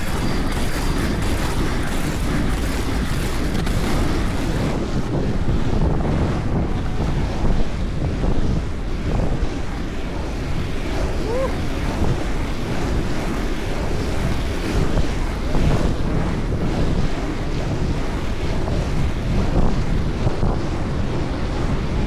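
Wind buffeting the microphone in gusts over a steady low rumble of skate wheels rolling on tarmac.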